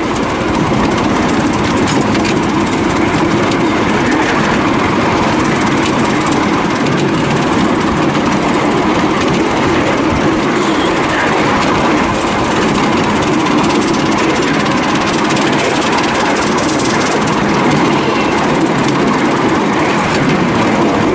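Miniature steam locomotive running steadily with its train, its exhaust beat and the wheels on the rails making a loud, continuous rapid clatter.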